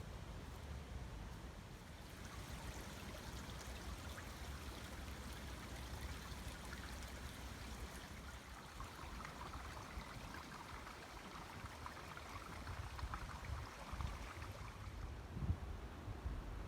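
Small brook running high after recent rain: a steady rush and babble of water that grows a little louder in the second half, then fades near the end.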